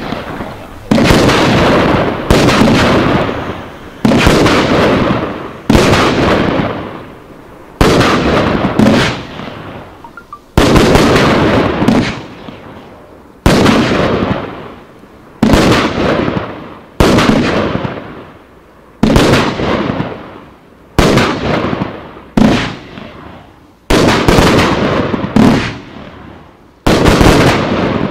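Riakeo Vortex 2, a 21-shot 30 mm consumer firework battery, firing shot after shot. A loud bang comes about every second to second and a half, each trailing off in a fading tail before the next.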